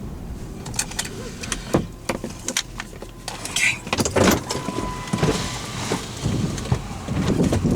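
Inside a car pulling over: low engine and road rumble with a scatter of short clicks and knocks from handling in the cabin, and a brief steady beep about five seconds in.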